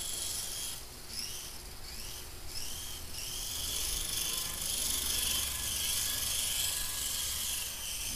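Small electric RC helicopter whining in flight, its pitch rising and falling several times in the first few seconds, then steadier, over a constant hiss.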